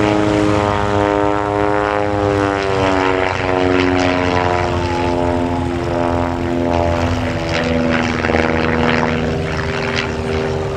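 Zlin Z-126 Trener light aircraft, its four-cylinder Walter Minor engine and propeller running loud during an aerobatic display, the engine note sliding down and back up several times as the aircraft manoeuvres.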